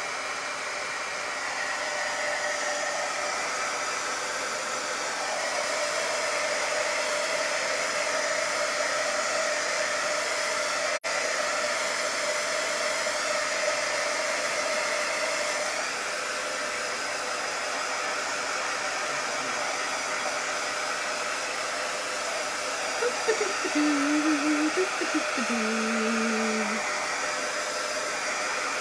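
Handheld craft heat tool running steadily, its fan blowing hot air over freshly applied chalk paste to dry it.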